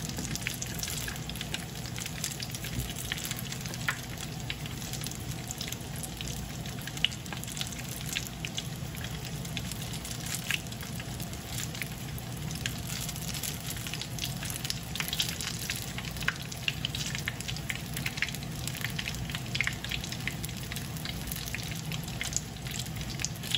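Vietnamese spring rolls (ram) frying in hot oil in a pan: a steady sizzle with frequent sharp pops and crackles.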